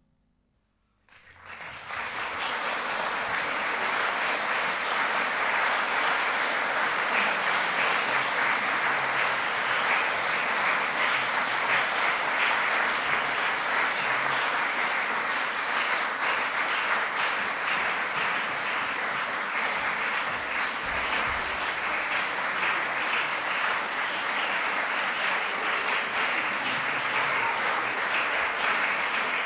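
Audience applauding steadily, a dense sustained clapping that breaks out about a second in after a moment of silence and keeps going.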